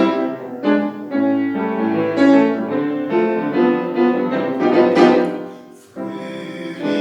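Piano playing the introduction to a sung round, notes and chords struck about two a second, dying away briefly near the end before another chord.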